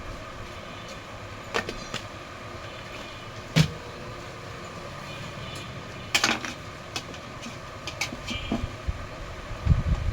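Scattered sharp clicks and knocks of hands and tools handling parts, a loud one about three and a half seconds in and a cluster about six seconds in, over steady background noise with a low rumble near the end.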